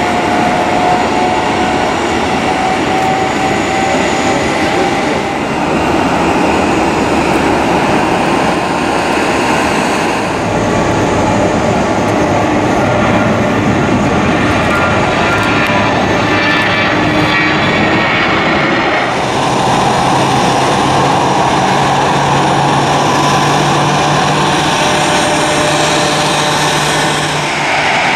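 Jet airliner engines running at an airport, with the sound changing at each cut: a steady engine whine first, then a Boeing 737-800's CFM56 engines at takeoff thrust on its takeoff run, then a steady low engine hum from the apron.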